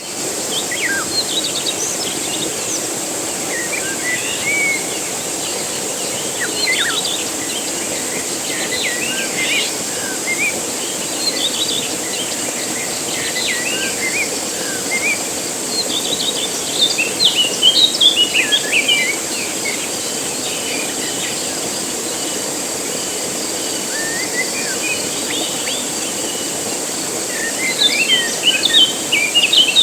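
Waterfall splashing with a steady rush of falling water, birds chirping and calling over it, busiest around the middle and near the end, and a steady high insect drone.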